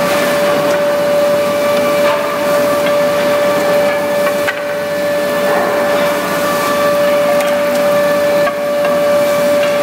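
REX planer running with a steady high-pitched whine over a rushing noise as wood is planed, with a few small knocks.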